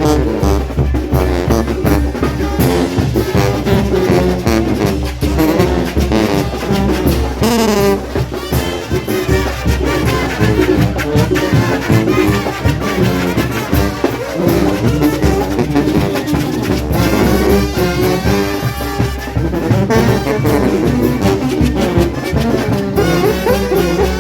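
Mexican banda brass band playing a dance tune: trumpets and trombones over drums keeping a steady beat.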